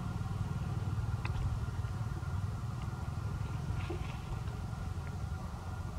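A steady low rumble like an idling engine, with a few faint short high sounds over it.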